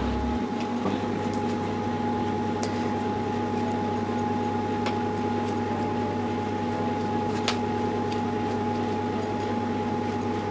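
Steady machine hum with a few faint clicks and scrapes of a metal spoon scraping the skin off boiled potatoes.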